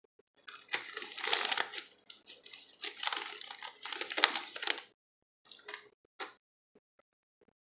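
A plastic potato chip bag crinkling and rustling loudly as a hand rummages inside it for chips. The crinkling lasts about four seconds, then a few short crackles follow.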